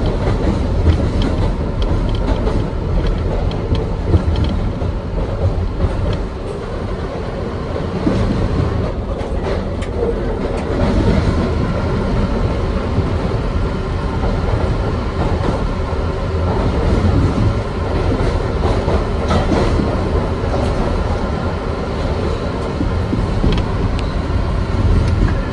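Times Square Shuttle subway train running through the tunnel, heard from inside the front car: a steady, heavy rumble of wheels on rail with scattered clicks over the rail joints.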